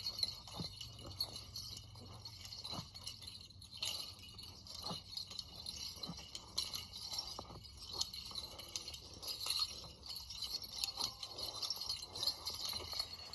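Creek water flowing and babbling, a steady splashing hiss with small irregular tinkling clicks.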